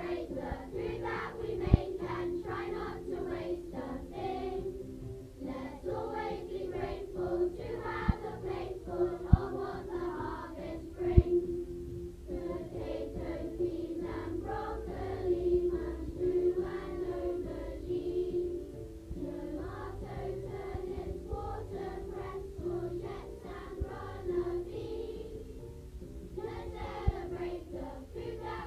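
A class of children singing together over steady instrumental accompaniment. A few sharp knocks cut through it, around two, eight to eleven, and twenty-seven seconds in.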